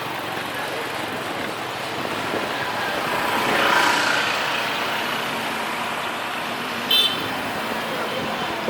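Busy street traffic noise. A vehicle passes close by, growing louder to a peak about four seconds in and then fading. A brief, sharp, high-pitched sound comes about seven seconds in.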